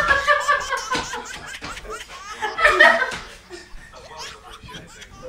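A woman laughing hard in repeated bursts, loudest at the very start and again about three seconds in.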